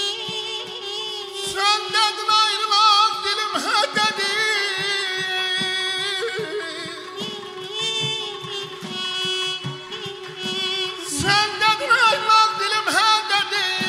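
Azerbaijani ashiq music: a saz played with a steady drone note and plucked strokes, under a man's ornamented, wavering vocal line that comes in about a second and a half in and again about eleven seconds in.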